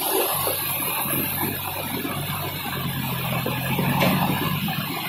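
Rushing floodwater and rain as a steady wash of noise. Underneath runs the low, steady hum of a heavy machine's engine working the debris flow.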